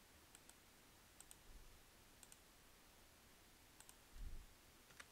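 Faint computer mouse clicks in a near-silent room, coming in quick pairs four or five times. A soft low thump about four seconds in.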